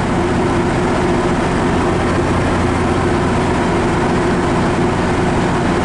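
A MARC diesel locomotive's engine running steadily close by: an even, loud drone with a constant low hum.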